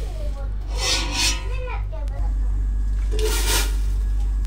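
Metal slotted spoon scraping and rubbing against the inside of a steel cooking pot in short rasping strokes, over a steady low hum.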